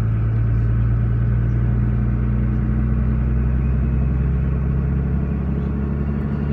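Vehicle engine running steadily, a low even hum with no revving.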